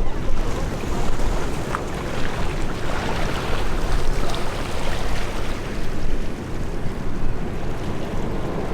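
Steady rush of wind on the microphone over the low rumble of a Boeing 737-800's jet engines as it comes in to land.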